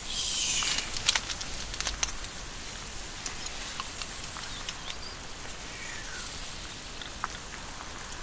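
Cast-iron pot of curry simmering over a wood campfire: a steady soft bubbling hiss with scattered crackling pops from the embers, louder and more hissing in the first second.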